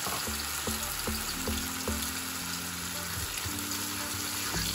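Blended tomato sizzling in hot oil in a non-stick wok, with a fork stirring it near the end.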